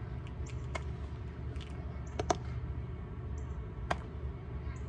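Outdoor background rumble with three sharp knocks about a second and a half apart, the middle one a quick double knock and the loudest.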